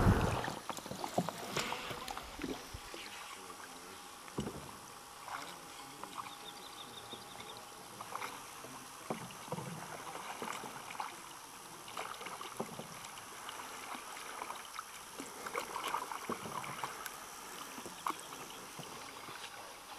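Canoe being paddled on a river: faint, irregular paddle splashes and swishes with an occasional light knock.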